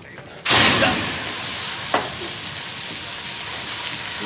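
A pan fire on a kitchen stove flaring up: a sudden loud hiss about half a second in, then steady sizzling, with a short sharp knock about two seconds in.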